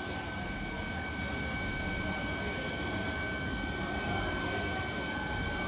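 Steady background hiss and hum with a faint high, unchanging whine; no distinct handling sounds stand out.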